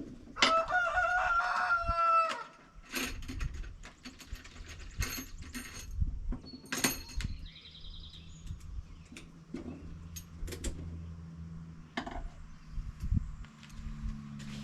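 A rooster crows once, a loud call of nearly two seconds that falls away at the end. Scattered knocks and clicks follow, and a low steady hum starts about halfway through.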